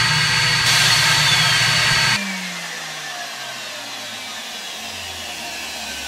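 Centralux (Electrolux) central vacuum power unit running at full suction, its air rush and motor whine heard from inside the cyclonic canister. About two seconds in the sound drops off sharply and the motor whine falls steadily in pitch as the motor spins down after being switched off.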